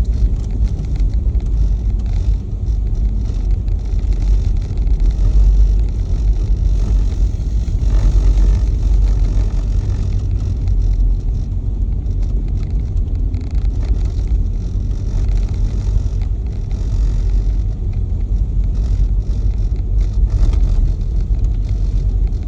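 Jeep climbing an ice-crusted, snow-covered hill road: a steady low rumble of engine and tyres, with scattered short crackles.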